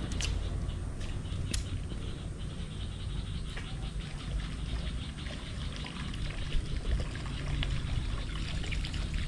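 Water trickling and lapping around a small fishing boat over a steady low rumble, with two sharp clicks in the first couple of seconds.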